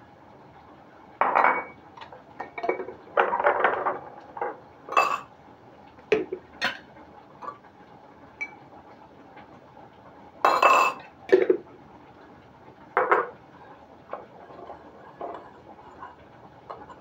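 Metal spoon clinking and scraping against a ceramic bowl in scattered short knocks, as dry spices are spooned in and stirred.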